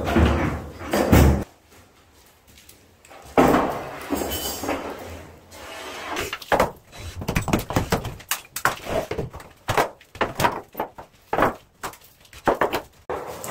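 Interior demolition work: a heavy thud near the start and a crash about three seconds in, then a long run of rapid, irregular knocks and clatter as material is broken and torn out.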